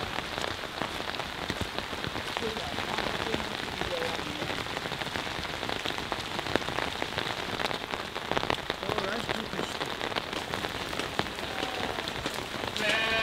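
Steady rain pattering on surfaces, a dense even patter of drops.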